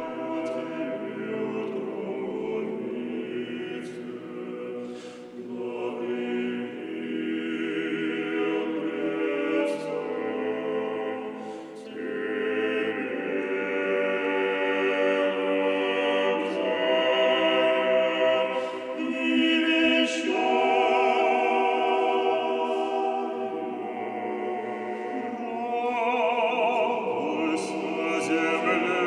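Male a cappella vocal ensemble singing Russian Orthodox chant in harmony, long held chords swelling and falling, with a short break about twelve seconds in.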